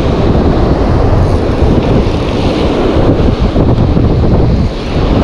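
Strong wind buffeting the microphone, with surf breaking behind it.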